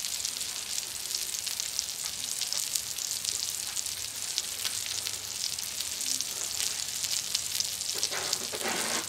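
Cheese-topped smash burger patties sizzling steadily on a hot steel flat-top griddle, with a constant run of fine crackling pops from the fat.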